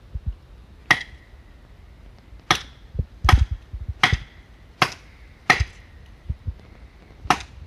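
A metal splitting tool is driven into firewood in seven sharp strikes about a second apart, several of them followed by a short metallic ring. The wood is not splitting cleanly: the camper thinks this firewood may be a dud.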